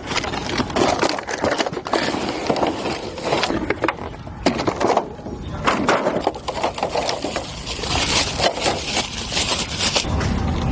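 Handling and opening of a cardboard-and-plastic product box: irregular scraping, rustling and light knocks.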